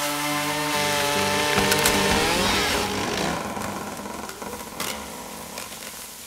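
Stihl chainsaw running under load. About two seconds in, the wood cracks and a felled tree comes down through leafy branches with a rushing crash that dies away over the next few seconds.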